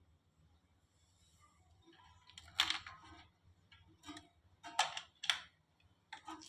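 About five short, sharp clicks and knocks at uneven intervals, like hard parts or tools being handled, with the loudest a little over two seconds in and a close pair near five seconds.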